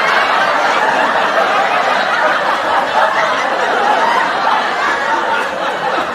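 Sitcom laugh track: a studio audience laughing together, many overlapping voices in a steady, dense wash of laughter.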